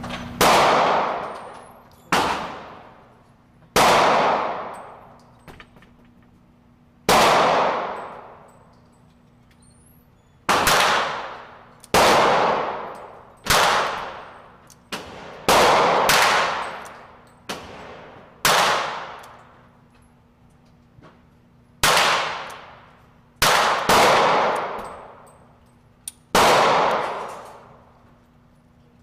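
Gunshots fired one at a time at a shooting range, about fourteen in all at uneven intervals, each loud crack trailing off in a long ringing echo.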